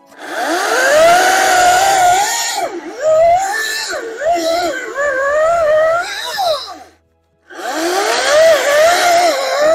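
Ryobi 40V battery chainsaw cutting through a log: the electric motor whines up to speed, then its pitch sags and wavers as the chain bites into the wood. The trigger is released about seven seconds in, and half a second later the motor spins up again with a rising whine.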